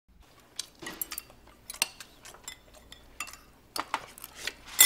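Chopsticks and rice bowls clinking and tapping during a meal: a scatter of light, separate clinks, with the loudest near the end.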